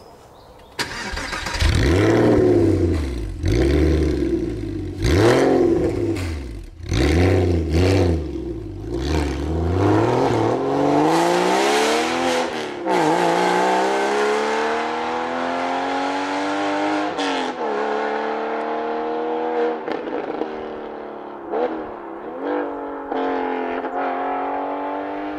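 Porsche 986 Boxster flat-six through a SCART sport exhaust: it starts abruptly about a second in and is revved several times at standstill. It then accelerates away through the gears, the pitch climbing and dropping at each upshift, growing duller and fainter as the car draws away.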